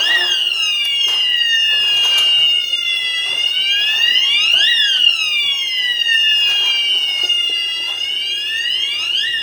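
Asenware fire alarm system sounding during a manual call point test. It gives a loud, steady high-pitched tone with a wailing tone sweeping up and down over it.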